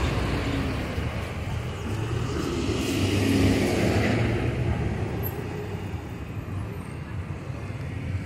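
Street traffic: car engines and tyres running past close by, with one car growing louder as it passes about three seconds in.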